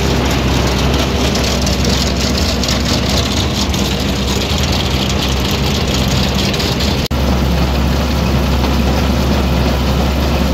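Machinery running steadily under load as a Dion forage wagon unloads chopped corn silage: tractor engine hum, with the wagon's chain-driven conveyor running and silage pouring into a bagger hopper. The sound shifts slightly about seven seconds in.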